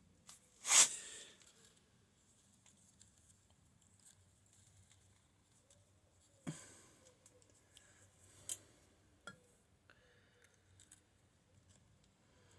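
A quiet room with scattered handling noises: a short scraping rustle about a second in, then a single knock and two sharp clicks later on.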